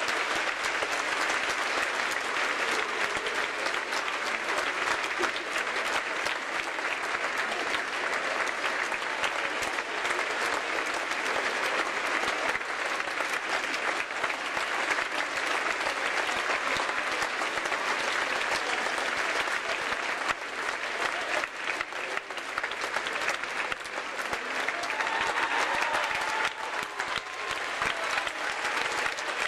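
Large crowd applauding steadily, the cast on stage and the audience together: a dense, even patter of many hands clapping.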